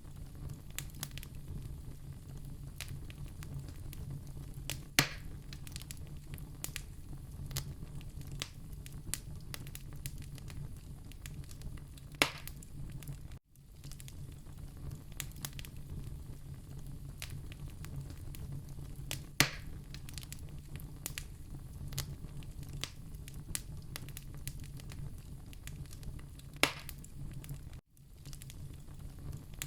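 Wood fire crackling in a fireplace: a steady low rumble of flame under constant small ticks and crackles, with a sharp louder pop about every seven seconds, four in all. The sound drops out for an instant twice, near the middle and near the end.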